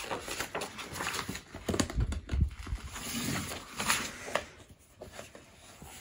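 Paper rustling and crackling as a large fold-out page of a thick book is folded back and the pages are handled, with a few dull knocks of the book around the middle.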